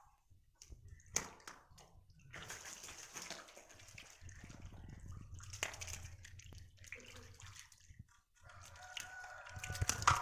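Snakehead murrel crowded in shallow water in a cement tank, splashing and flopping in uneven wet bursts, with sharp splashes about a second in and again near the middle.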